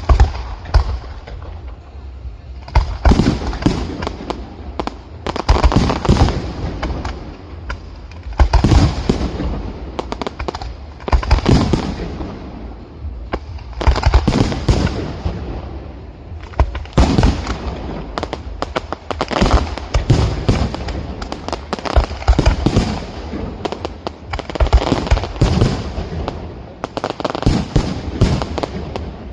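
Fireworks display: salvos of aerial shells bursting in rapid clusters of sharp bangs, one salvo about every two and a half to three seconds, with crackling between them.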